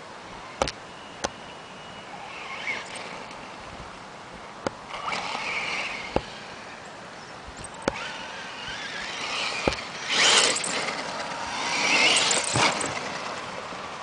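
Radio-controlled car driving over a gravel track, with bursts of tyre and gravel noise as it accelerates, about 5, 10 and 12 seconds in. The loudest burst is near 10 seconds. Scattered sharp clicks run throughout.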